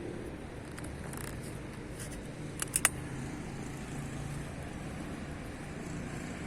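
Steady hum of road traffic, with three sharp clicks in quick succession just under three seconds in.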